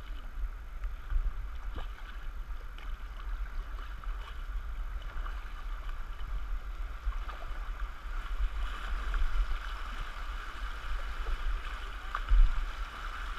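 Whitewater rapids rushing steadily around a canoe, over a constant low rumble. There is a sharp knock about twelve seconds in.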